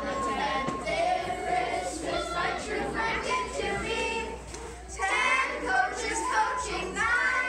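A mixed group of children and adults singing together in chorus, with a recorder played along; the singing grows louder about five seconds in.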